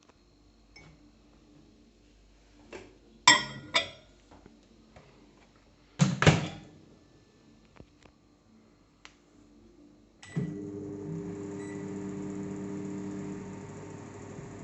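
LG MS-1948 microwave oven: a few sharp clacks from the door and its latch, then about ten seconds in it switches on and runs with a steady hum.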